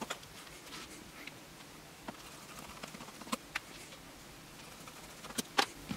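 Light, scattered clicks and taps of fingers handling a small plastic-cased power supply and picking at its rubber feet, about half a dozen sharp ticks spread over a few seconds.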